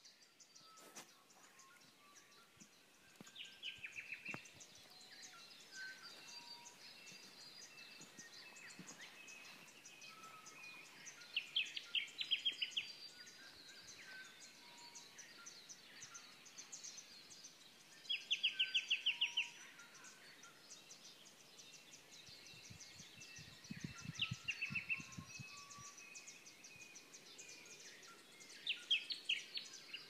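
A chorus of birds: steady short chirps and whistles, with a loud rapid trill recurring about every six seconds. A brief low pulsing sound comes about three-quarters of the way through.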